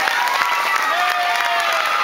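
Theatre audience clapping steadily, with cheering voices held over the applause.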